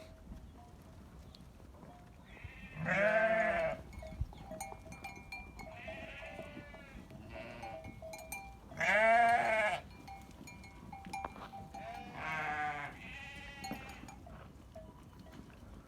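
Sheep bleating: several wavering calls about a second long each, three of them loud, with fainter ones in between.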